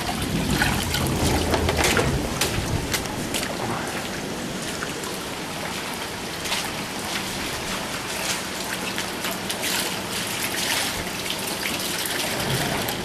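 Rain falling and rainwater trickling and splashing down the concrete steps of a flooding basement stairwell. A steady hiss is scattered with many small splashes and drips.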